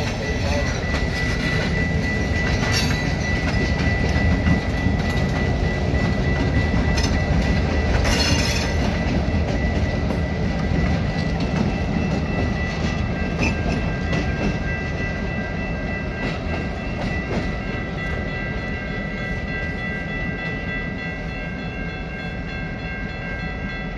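Freight train rolling slowly past: hopper car wheels clacking over rail joints, with a couple of sharp clicks, then the idling rumble of two EMD GP38-2 diesel locomotives that grows louder and then fades slowly as they move away. Steady high ringing tones run over it.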